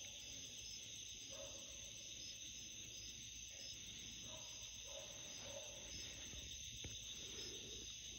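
Night-time insect chorus, crickets trilling steadily at a high pitch, with a lower, shorter call repeating about once a second.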